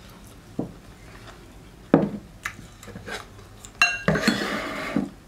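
Glassware and dishes knocking on a table as a glass cider bottle and a wine glass are moved and set down: several separate knocks, a short ringing glass clink just before the four-second mark, then about a second of clatter.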